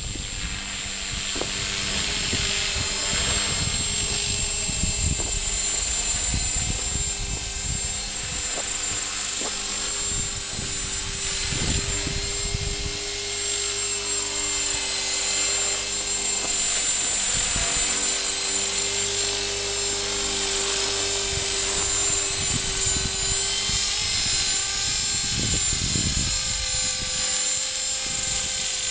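Align T-Rex 450 Pro electric RC helicopter flying, its rotor and motor whine steady with the pitch wavering slightly. Gusty wind buffets the microphone underneath.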